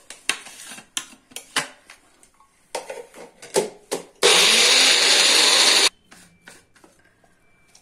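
Electric mixer grinder (mixie) run in one short pulse of under two seconds, coarsely crushing green garlic and green chillies in its small jar; the motor stops abruptly. Before it, a series of clicks and knocks as the jar is handled and set on the base.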